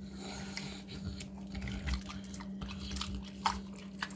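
Mini pot-bellied pig eating soft feed from a stainless steel bowl: wet, irregular chewing and smacking with small clicks.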